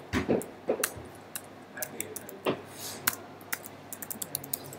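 Typing on a computer keyboard: a scattered run of short key clicks, irregular in spacing.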